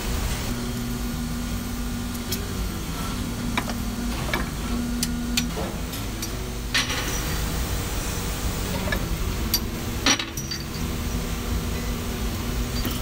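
Steady hum of workshop machinery at a hydraulic press, with scattered metallic clinks and knocks as steel spindle blanks are handled and laid in the press. The loudest knock comes about ten seconds in.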